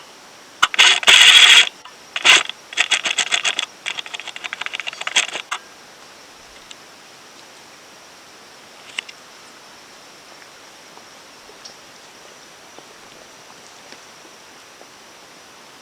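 An unidentified bird giving harsh, rapid rattling calls in three bouts within the first five seconds or so, the first bout the loudest. A faint, steady high insect buzz carries on underneath.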